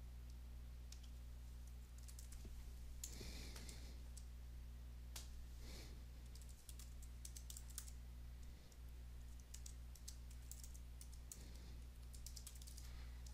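Faint computer keyboard typing: irregular runs of keystroke clicks over a steady low hum.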